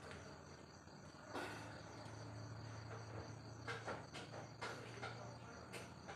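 Faint, steady high-pitched chirping of insects, with a low hum through the middle and a few soft clicks and rustles in the second half.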